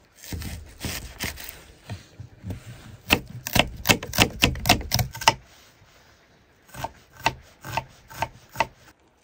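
Knife chopping on a wooden cutting board: first a scraping, rubbing sound, then a quick run of about ten sharp chops, and after a short pause five slower chops.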